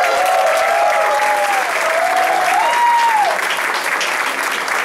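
Audience applauding and cheering at the end of a song, with a few long drawn-out whoops over the clapping in the first three seconds.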